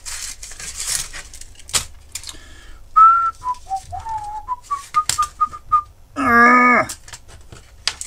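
A person whistling a short tune of brief notes that dip and then climb, followed by a short voiced note that falls slightly. A few clicks of a plastic drill-bit case being handled come before and during it.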